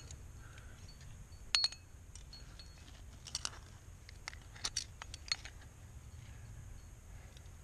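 Metal climbing gear clinking: carabiners and protection on a harness rack knocking together as the climber moves, in a few short bright clinks with a cluster near the middle.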